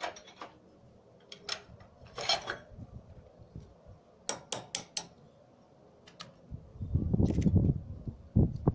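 Small metal parts and tools of an air-powered grinder clinking and clattering as they are handled, in scattered sharp clicks. About two-thirds of the way in, a louder low rustling and rumbling takes over.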